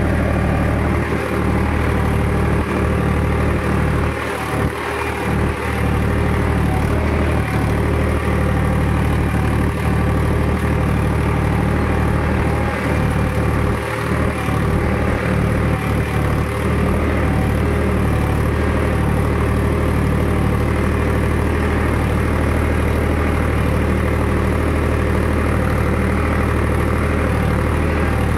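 Powertrac tractor's diesel engine running steadily, heard from the driver's seat while the tractor drives across a field.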